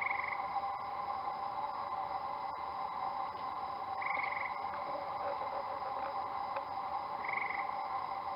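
Frogs calling at night: a steady chorus, with a short trilled call three times, about every three to four seconds.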